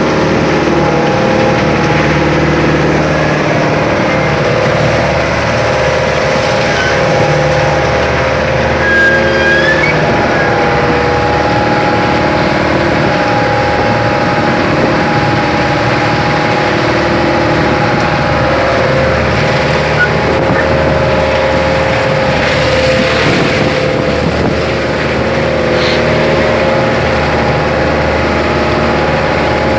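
Fishing boat's engine running steadily and loud, with small shifts in pitch.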